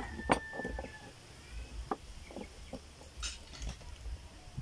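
Kitchen knife and oyster shells clicking and knocking against a wooden cutting board as oysters are opened and cleaned: a few scattered sharp knocks, the loudest just after the start.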